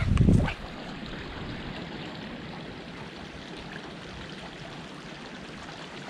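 Steady rushing of a small trout stream. A gust of wind buffets the microphone with a low rumble in the first half-second.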